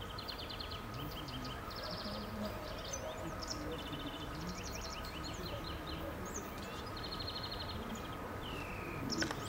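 Songbirds singing, a quick succession of short rapid trills and chirps repeating throughout, over a steady low rumble. There is a sharp click near the end.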